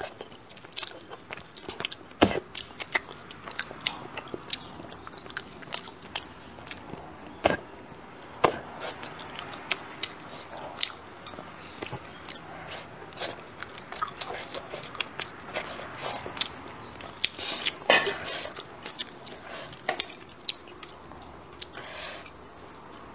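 Close-miked eating sounds: chewing on braised fish and rice, with many short, sharp, irregular clicks of wooden chopsticks picking at the fish bones in the bowl.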